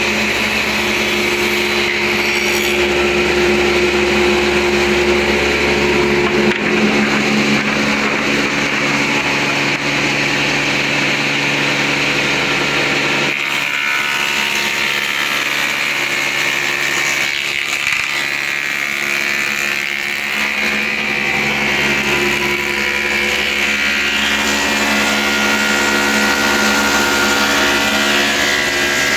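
Woodmaster planer/moulder and its dust collector running steadily while milling crown moulding, a loud continuous machine hum with a hiss of cutting and suction.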